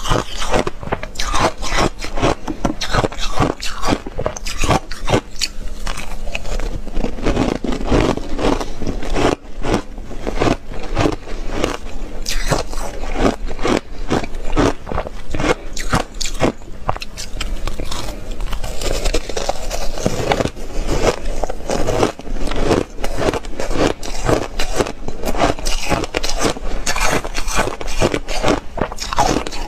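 Chunks of hard frozen ice being bitten and chewed right at a clip-on microphone: a continuous run of loud, irregular crunches and cracks.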